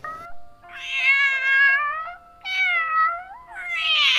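Domestic cat meowing: three long, drawn-out meows one after another, the last still going at the end.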